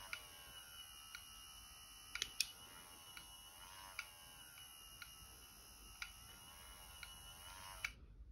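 Faint electronic hum and static hiss with a warbling tone and a steady high whine, broken by sharp clicks about once a second; it cuts off suddenly near the end.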